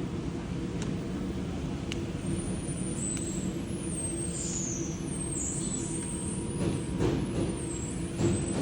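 Motor vehicle running with a steady low engine and drivetrain rumble, and a few faint high squeaks gliding up and down over it.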